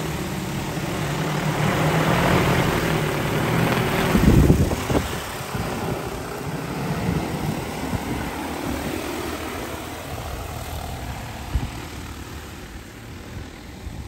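Rotors of a DJI Agras T40 agricultural spray drone whirring as it flies past, loudest in the first few seconds with a brief low rumble about four seconds in, then slowly fading as it moves away.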